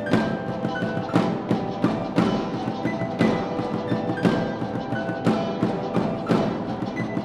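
Wind ensemble playing a Christmas song: held chords with a sharp percussion accent about once a second.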